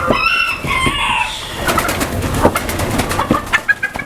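Chickens calling in short pitched notes about the first second, followed by a run of sharp clicks and taps.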